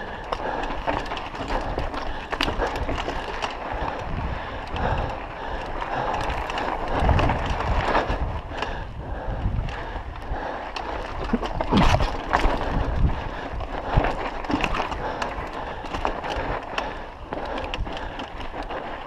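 Mountain bike riding along a sandy dirt trail: steady tyre noise with frequent clicks and rattles from the bike, and a few heavier knocks over bumps.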